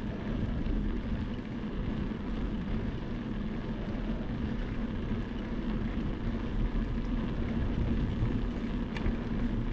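Steady rumble of wind on the microphone and bicycle tyres rolling on asphalt, with a steady low hum underneath.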